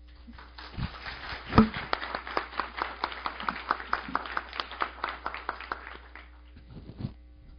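Audience applauding, individual hand claps distinct, starting about half a second in and dying away about six seconds in, with a few last claps near the end.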